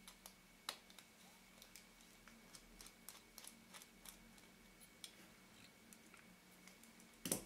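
Faint, irregular small clicks and ticks of small tools and metal parts being handled while the bayonet ring of a Carl Zeiss Tessar 45 mm lens is unscrewed and taken off, with a sharper click about a second in and a louder clatter of clicks near the end.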